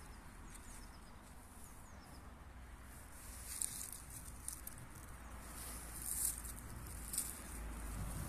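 Quiet garden ambience with low wind rumble on the microphone and a few soft, short rustles of leaves and ground cover, the first about three and a half seconds in and two more near the end.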